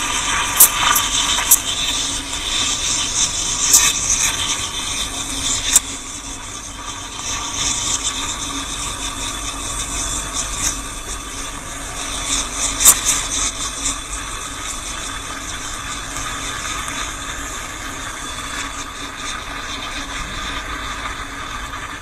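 Espresso machine steam wand hissing steadily into a stainless-steel pitcher of milk, steaming and frothing it. Sharp spitting crackles come through the first few seconds and again about thirteen seconds in.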